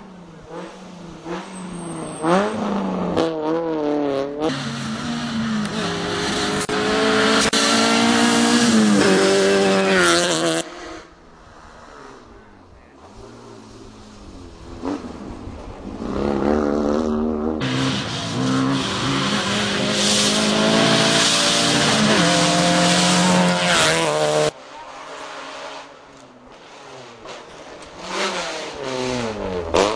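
Rally cars driving past at speed, their engines revving up and dropping back through gear changes, with tyre noise. There are two long passes, each cut off abruptly, and a shorter burst near the end.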